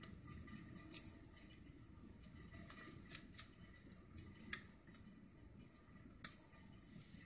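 Small sharp clicks and ticks from a screwdriver taking out the small screws that hold a laptop's screen panel in place, about six of them at irregular intervals, the loudest about four and a half and six seconds in.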